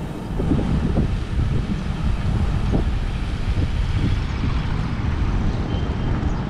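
Wind buffeting the microphone of a camera riding on a moving bicycle: a loud, uneven low rumble mixed with road noise.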